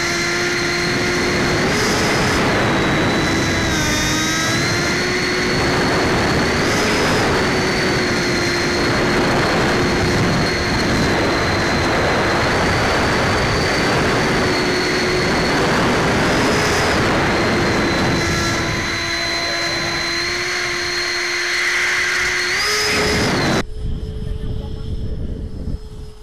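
Electric ducted fan of an RC jet (70 mm, 12-blade, brushless motor) whining steadily in flight, heard up close with heavy wind rush on the microphone. The pitch dips briefly about four seconds in and rises slightly a few times. Near the end it cuts off sharply, giving way to a fainter, more distant fan whine.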